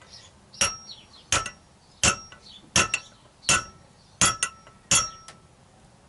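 A hammer striking a steel tube drift, seven sharp ringing metal clanks about three-quarters of a second apart with a couple of lighter taps between them, driving a Yamaha XJ900S Diversion steering-stem bearing into place.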